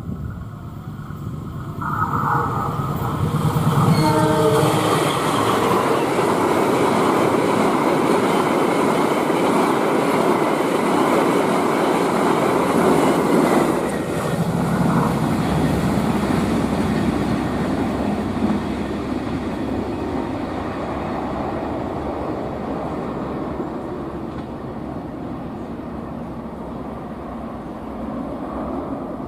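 Passenger train passing at speed. Its horn sounds two short blasts, about two and four seconds in, then the wheels and carriages rush past loudly with some clickety-clack. The noise drops about halfway through and fades as the train moves away.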